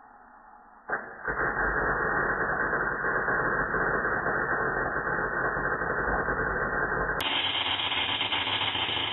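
MIG welder arc crackling steadily as a bead is run on the chassis, starting with a sharp click about a second in. About seven seconds in it shifts to a thinner, brighter crackle.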